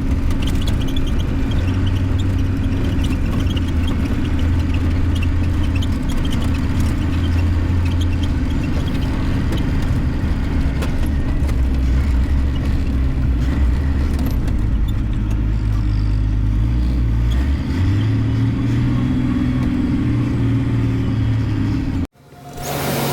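Heavy harvest machinery running steadily: a low diesel drone with light clatter. The engine note shifts a little about three-quarters of the way through, then the sound cuts off abruptly near the end and a different machine sound begins.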